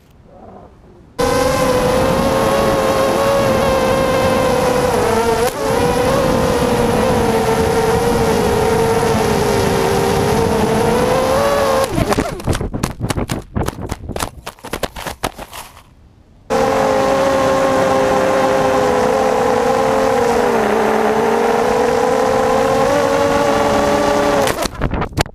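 ZMR250 racing quadcopter's electric motors and propellers whining in flight, the pitch wavering with the throttle. About twelve seconds in the whine breaks into a rapid clatter of knocks as the quad crashes and tumbles. A few seconds later the whine starts again abruptly, and near the end it breaks into clattering knocks once more in a second crash.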